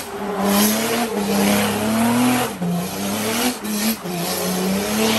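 Mercedes OM606 turbo-diesel in a Nissan Patrol 4x4, revving hard in surges as the truck spins donuts on loose gravel. The engine note climbs and then drops back several times, under a hiss of spinning tyres and spraying gravel.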